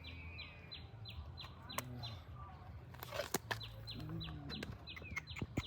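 Birds calling in the background, with a steady series of short falling chirps, about two to three a second. There is a brief rustle about three seconds in, and a few scattered clicks.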